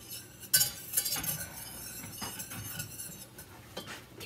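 Kitchen utensils clinking and knocking against pots and dishes: a sharp clink about half a second in, then scattered lighter clinks.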